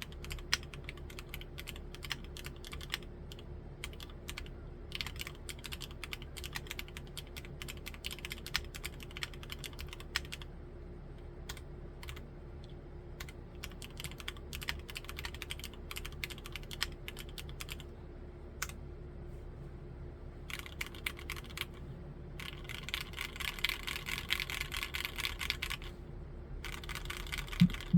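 Typing on an Akko MOD005 full-aluminium mechanical keyboard with Gateron Milky Yellow Pro linear switches. Keystrokes come in a continuous stream, with faster, denser runs of typing broken by a few sparser stretches.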